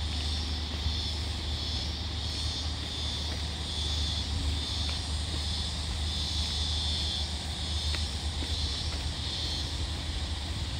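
Outdoor bush ambience: a steady low rumble of wind on the microphone under a high hiss that swells and fades every second or so.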